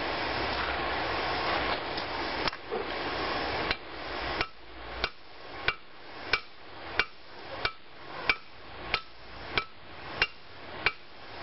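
Hand hammer striking a red-hot metal bar on the edge of an anvil, starting about four seconds in: about a dozen evenly spaced blows, roughly three every two seconds, each with a short metallic ring. They are edge hammer blows on the far side, squeezing the hot bar down where it lies on the anvil's edge.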